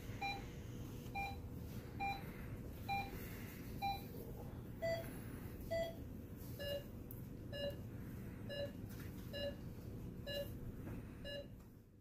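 Bedside patient monitor beeping its pulse tone about once every 0.9 seconds, roughly 65 beats a minute, over a faint steady room hum. About five seconds in, the beep drops to a slightly lower pitch, and the sound fades out at the end.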